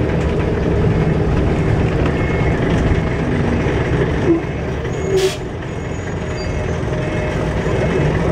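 Scania L94UB bus's nine-litre five-cylinder diesel engine running under way, heard from inside the passenger saloon. A short hiss comes about five seconds in, and just after it the engine noise eases off before building again towards the end.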